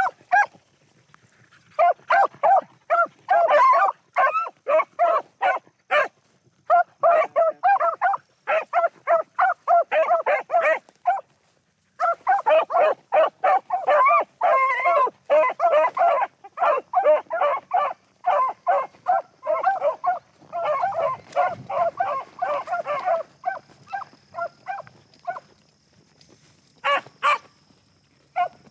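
Beagles baying as they run a rabbit on scent: a rapid stream of short, overlapping barks from the hounds on the track. The barking breaks off briefly a few times, the longest pause lasting a few seconds near the end.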